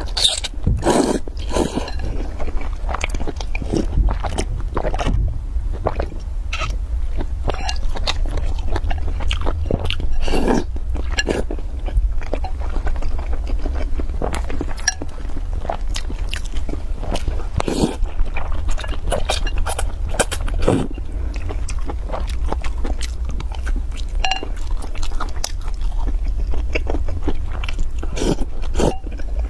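Close-miked eating: noodles slurped from a bowl of spicy soup and chewed, with many short, wet mouth sounds and bites scattered throughout over a low steady hum.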